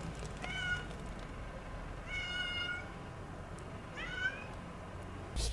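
A cat meowing three times, about two seconds apart, the middle call the longest. A sudden louder burst of noise cuts in at the very end.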